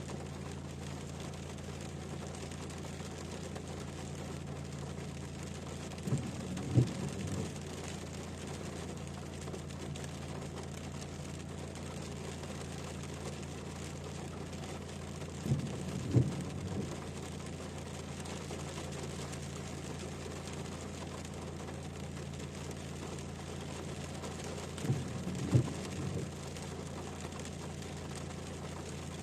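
Steady rain with a low, even hum underneath. Three short double knocks come at evenly spaced moments, about nine seconds apart.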